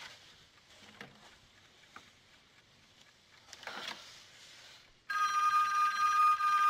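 Near quiet with a few faint taps, then about five seconds in a landline telephone's bell starts ringing suddenly and keeps on ringing, loud and steady.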